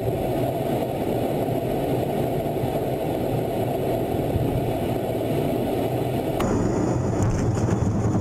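Fighter jet in flight heard from inside the cockpit: a steady, muffled rumble of engine and airflow. About six seconds in it switches abruptly to a brighter, hissier rush.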